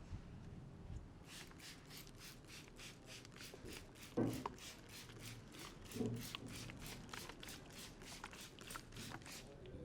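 Hands rubbing briskly through hair and over the scalp in a head massage: an even swishing, about three to four strokes a second, that starts about a second in and stops near the end. Two dull thumps come in the middle, the first the loudest sound here.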